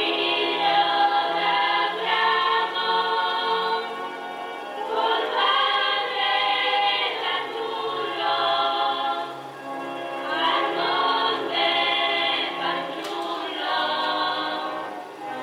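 A choir singing, with long held chords in phrases a few seconds long separated by short breaths.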